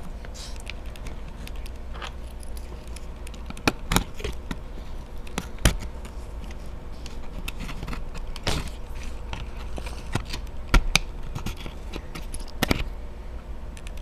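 Scattered small clicks and light scrapes of a RAM module being unlatched and pulled from its slot on a 2009 MacBook Pro logic board, over a steady low hum.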